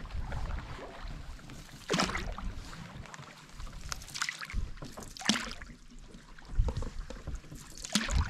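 Canoe paddles dipping into calm water and pulling through, a swish and splash every one to two seconds as the canoe glides.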